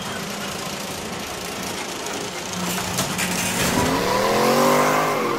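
Car engine revving, rising in pitch about four seconds in, over a steady rushing noise.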